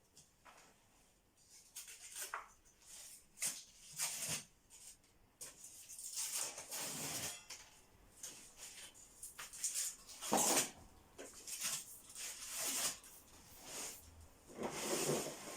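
Old wallpaper being torn and scraped off a wall: a run of irregular ripping strokes, the loudest a little past the middle.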